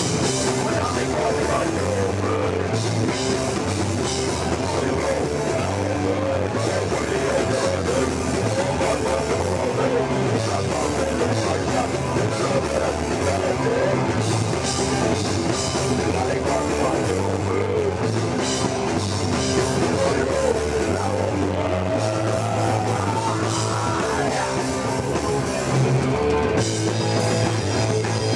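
A live rock band playing a song on electric guitar, bass and drum kit, loud and unbroken.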